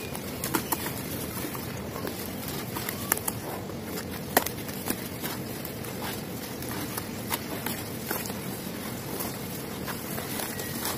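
Dry, dusty cement pieces snapping and crumbling, played at double speed: scattered sharp snaps over a steady gritty noise, the loudest snap about four seconds in.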